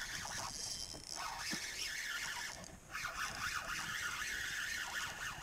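Spinning reel being cranked to retrieve a lure, a steady whir that stops briefly about halfway through and then goes on.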